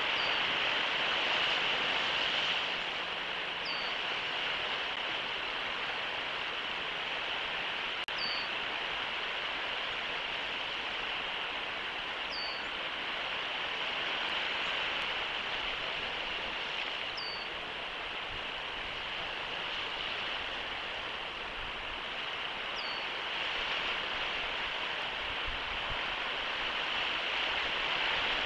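Steady rushing outdoor noise, with a short, high chirp that falls in pitch, heard six times about every four to five seconds.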